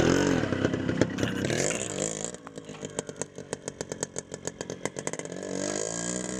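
Motorcycle engine revving up and down as it pulls away with two riders, then settling into a rapid popping beat that fades as the bike rides off.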